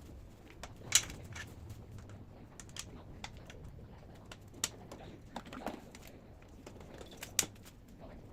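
Scattered light clicks and taps from the parts of a steel bed frame being fitted together. The loudest click comes about a second in, and another sharp one comes near the end.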